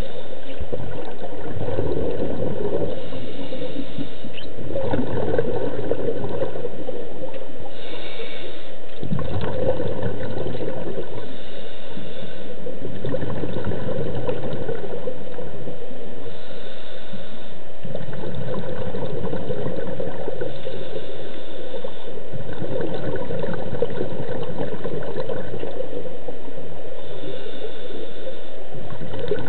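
Underwater scuba breathing heard through an underwater camera: surges of regulator exhaust bubbles gurgling every three to four seconds, with short hisses between them.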